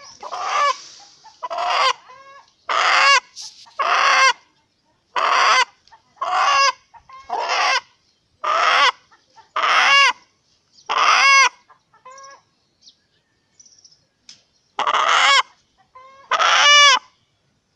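Free-range rooster, held in a person's hand, squawking over and over: loud short calls about one a second, with a pause of about two seconds two-thirds of the way through.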